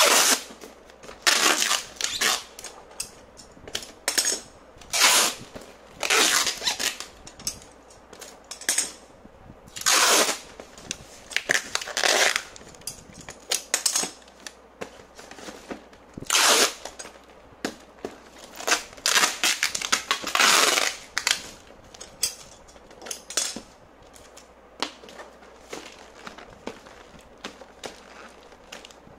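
Packing tape being pulled off its roll in repeated loud rips as it is wrapped around a cardboard box, over a dozen pulls in the first twenty seconds. After that only lighter rustling and handling of cardboard.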